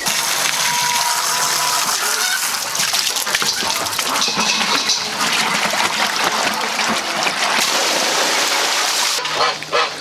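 Water from a garden hose spraying and gushing as it rinses out a chicken waterer, then runs into a plastic bucket. The steady rush of water stops about nine seconds in.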